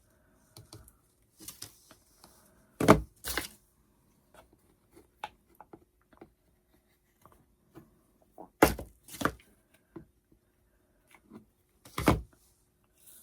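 Sharp clacks and small clicks of craft pieces and tools being picked up and set down on a work table during hot-glue assembly. The loudest come in pairs, about 3 s, 9 s and 12 s in.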